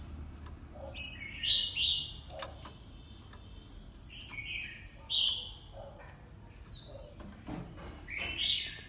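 Oriental magpie-robin singing in short bursts of whistled and scratchy notes, one sliding down in pitch, with a few sharp clicks in between.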